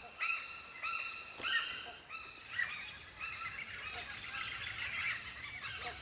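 Hornbills calling: three or four short, high yelping notes in quick succession in the first two seconds, then scattered, fainter calls.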